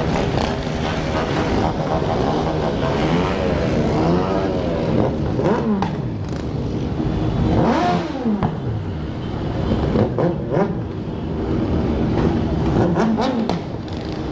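A crowd of motorcycles revving their engines, many engine notes overlapping and rising and falling against one another, with one strong rev climbing and dropping about eight seconds in.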